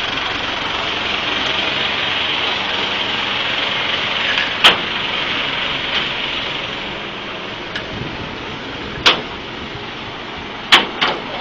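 Steady vehicle engine and traffic noise, broken by sharp knocks or clanks about five seconds in, again around nine seconds and twice near the end.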